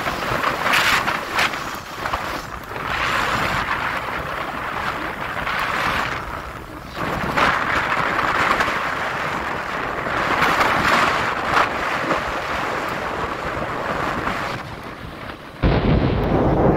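Wind rushing over the microphone of a moving camera, swelling and easing in gusts, with a sudden heavier, deeper buffeting near the end.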